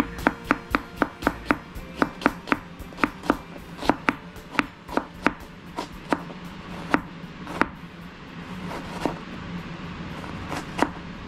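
Chef's knife slicing a red onion on a plastic cutting board: quick, regular knocks of the blade on the board, about three a second, thinning out to a few scattered strokes in the second half.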